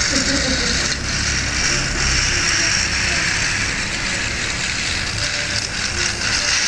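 Battery-powered toy train running, its small motor and plastic gears whirring steadily.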